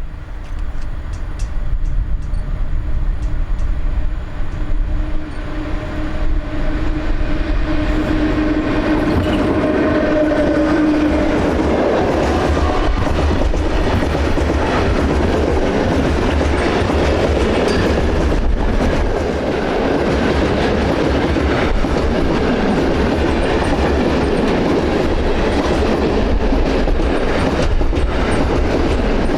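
A train passing close by: a steady hum for the first ten seconds or so, then the wheels clattering over rail joints as the cars roll past.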